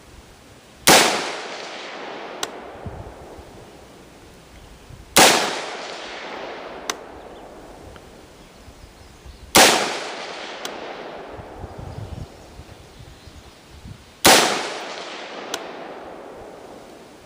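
Four rifle shots from an AR-15 carbine in 5.56 with a 16-inch mid-length barrel, fired slowly about four to five seconds apart, each report rolling away in a long echo. A small sharp crack follows each shot about a second and a half later.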